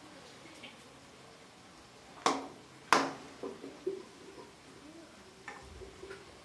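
Two sharp clinks of a serving utensil against a ceramic plate, about half a second apart a little over two seconds in, followed by a few lighter taps as beef rolls are served.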